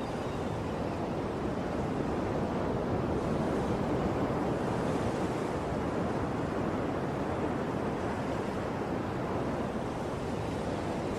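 Sea waves surging on a shore: a steady rush of surf.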